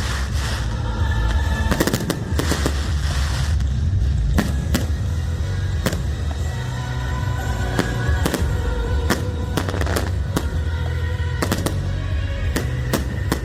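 Fireworks display: sharp bangs and crackles, about one or two a second, with music playing underneath.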